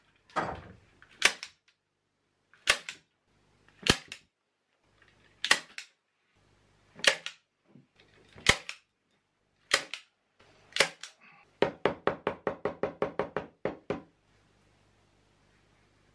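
Sharp hammer taps on a leather shoe upper stretched over the last: single taps about every second, then a quick run of about fifteen taps near the end.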